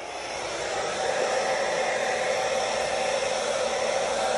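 Hair dryer blowing across wet acrylic pour paint, switched on near the start and building to a steady rushing blow over the first second.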